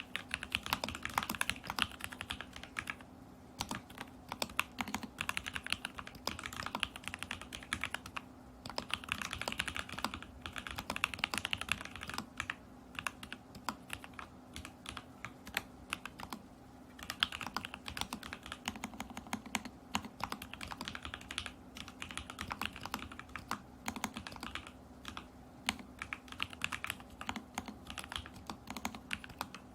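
Typing on a mechanical Alice-layout keyboard in a stacked acrylic case, with lubed and filmed Lavender switches, tape mod and Polycaps Whale keycaps: runs of quick keystrokes broken by short pauses. A faint steady hum sits underneath.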